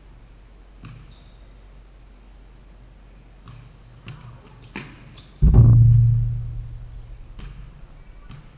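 A basketball shot hitting the backboard about five and a half seconds in, a loud thud followed by a low hum as the backboard rings for about two seconds, heard from a camera mounted on the backboard itself. Before it, sneaker squeaks and light knocks of the ball on the hardwood floor.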